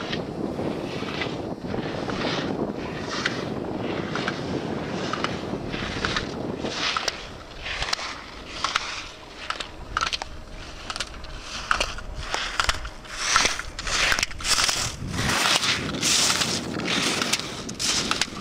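Slalom skis scraping and carving on hard-packed snow, one rasping stroke after another as the skier turns through the gates, with sharp clacks of gate poles being struck. Wind rushes on the microphone at first, and the strokes grow sharper and louder in the second half.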